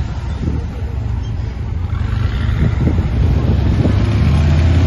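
Loud, steady low rumble of street traffic, a motor vehicle's engine running close by, mixed with wind on the microphone, growing a little louder near the end.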